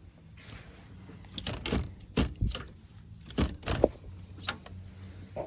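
Light metallic clicks and rattles, about ten over three seconds, as the screen door closer's tension wire and small metal hardware are handled and threaded back through the closer.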